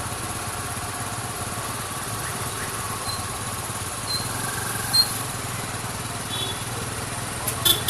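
A motor running steadily, with a few sharp clicks near the end.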